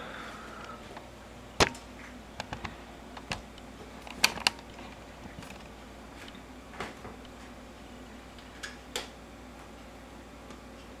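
Scattered sharp clicks and light knocks, about a dozen in all, the loudest a little over a second in and a close pair near the middle, over a faint steady hum: handling noise from the camera being set down and things being moved about at a kitchen stove.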